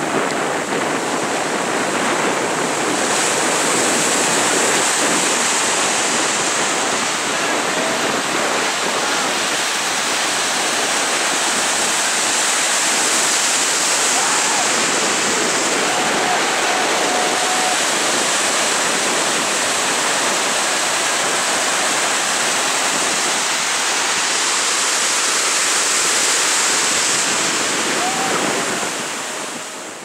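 Pacific surf breaking and washing through in white water: a steady, loud rush of waves. It fades out near the end.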